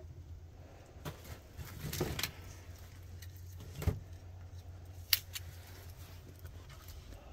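Kindling fire of split wood crackling in a metal stove firebox, with scattered sharp pops, the strongest about four and five seconds in, over a low steady rumble.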